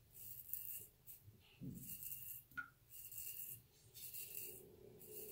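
RazoRock Blackhawk v2 safety razor with a Feather Professional blade scraping through lather and two-and-a-half days' stubble. The strokes are short, faint and rasping, coming about once a second.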